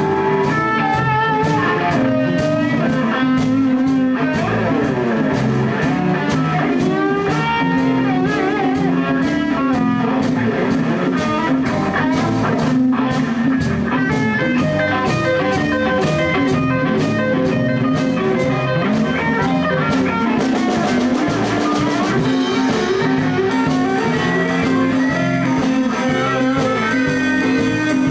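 Live blues band playing an instrumental passage: guitar with drum kit keeping a steady beat, with notes bending in pitch.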